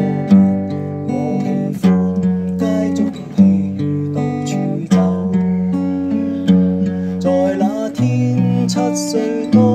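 Fender acoustic guitar played with the fingers: chords strummed about once a second and left ringing, with notes picked in between.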